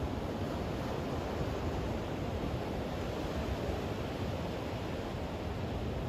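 Ocean surf breaking and washing up a sandy beach, a steady roar of rushing water with no single wave standing out.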